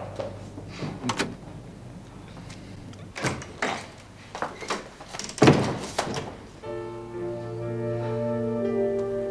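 A handful of sharp knocks and thuds, the loudest a little past halfway. Then background music comes in with held, sustained chords for the last couple of seconds.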